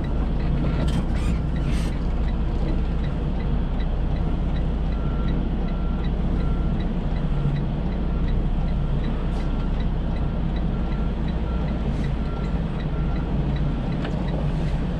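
Semi truck's diesel engine running heard from inside the cab while the truck reverses, with its backup alarm beeping steadily over the engine.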